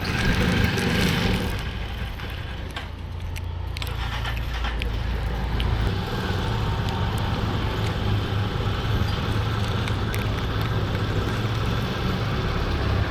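Steady low rumble of motor-vehicle traffic, with a few faint clicks.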